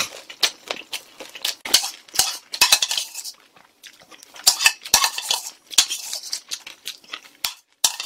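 Chopsticks and a spoon clicking and scraping irregularly against a bowl, scooping up the last of the jjajangmyeon and its black-bean sauce.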